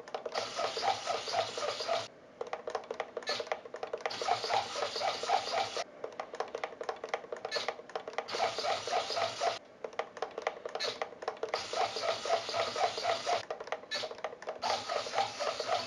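Two RC hobby servos whirring as they drive a model plane's control surfaces back and forth in answer to transmitter stick inputs, in bursts of two to four seconds with short breaks between.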